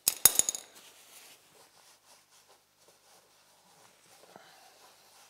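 A quick run of sharp metallic clicks from a hand wrench working the oil drain plug, then faint rubbing as the area is wiped with a rag.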